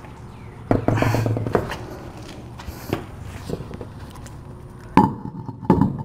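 Metal clatter and knocks of a car wheel being seated on the hub studs while the lug nuts are started by hand: a rattling clatter about a second in, then two sharp knocks near the end.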